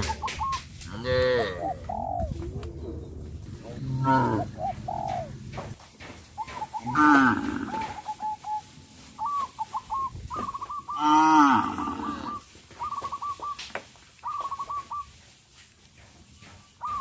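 Cattle mooing, several long drawn-out calls a few seconds apart, the loudest about 11 seconds in. Between and after the moos, bird calls: runs of short repeated notes.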